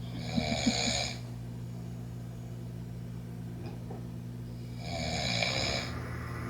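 A man snoring in his sleep: two snores, each about a second long, some four seconds apart.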